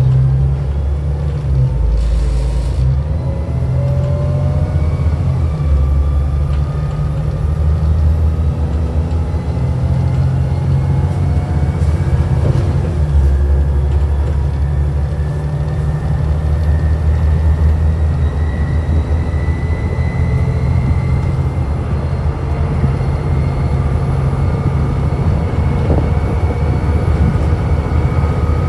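Volvo B7TL double-deck bus's six-cylinder diesel engine and automatic gearbox in kickdown: the gearbox drops a gear under full throttle and the engine pulls hard, its whine climbing slowly and steadily in pitch as the bus accelerates, heard from inside the passenger saloon. The pitch briefly dips about three-quarters of the way through, then climbs again.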